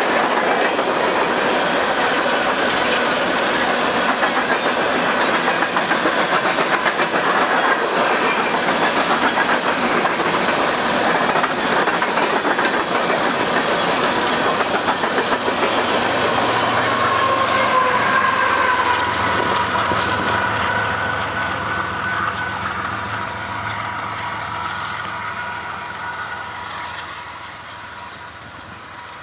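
Freight train hopper cars rolling past with steady clickety-clack of wheels over the rail joints. Past the middle, a BNSF diesel locomotive in the train goes by, adding a low engine drone and a wavering high tone. The sound then fades gradually as the train moves away.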